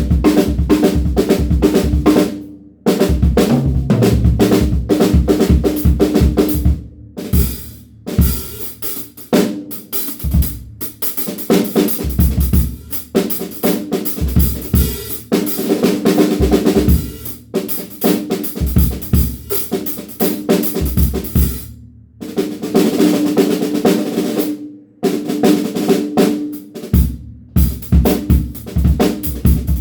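DW Frequent Flyer drum kit being played in fast grooves and fills, with a ringing snare and deep bass drum hits. The playing stops briefly several times between phrases.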